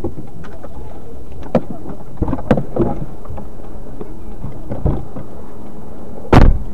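Steady low rumble of a stationary car heard through its dashcam microphone, with scattered knocks and one loud thump about six seconds in.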